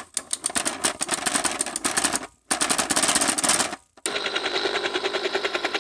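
VTech Explore and Learn Helicopter toy making a fast rattling helicopter sound in three bursts with short breaks between them; the last burst has a buzzing tone running through the rattle.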